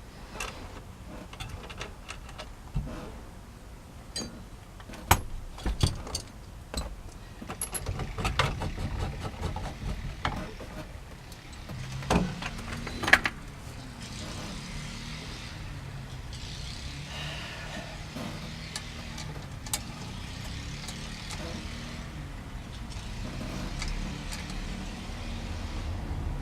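Clicks, knocks and clatter of tools and parts being handled while a steering wheel is fitted to the column, followed about halfway through by a steady low rumble.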